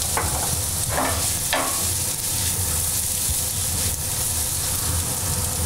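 Sliced carrots sizzling steadily in hot olive oil in a black steel frying pan over a gas flame. The pan is shaken to toss the carrots, with a few short scraping strokes in the first two seconds.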